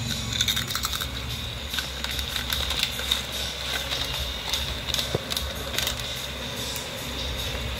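Dog eating crunchy puffed snacks from a plastic snack bag: irregular crisp crunches and crackles, some in quick clusters.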